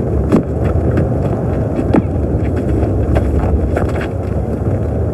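Tornado wind sound effect: a loud, steady low rush of wind with scattered knocks and rattles of debris.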